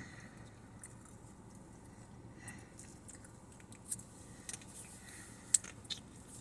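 A person chewing rippled potato chips, faint, with a few sharp crunches about four to six seconds in.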